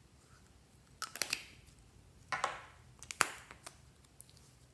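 Lipstick cases handled in the hands: a few sharp plastic clicks about a second in, a short scraping rustle near the middle, then the loudest click and a few fainter ones as the cap and tube are worked.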